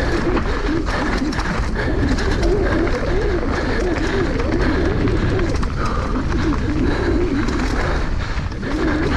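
Mountain bike riding down a dirt downhill trail at speed. Steady wind rush and buffeting on the mic, tyres on dirt, and a stream of knocks and rattles from the bike over bumps.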